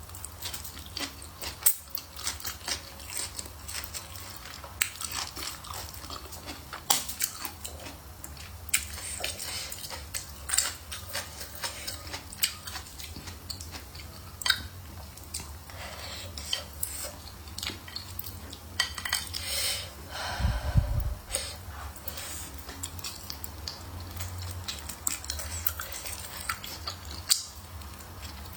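Eating sounds: utensils clicking against a bowl of hotpot and noodles, with chewing between the clicks. A dull thump about two-thirds of the way through.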